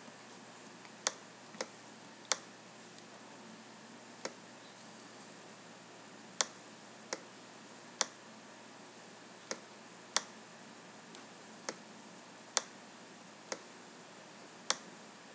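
Sharp single clicks from the computer's controls at uneven intervals, roughly one a second, over a faint steady hiss.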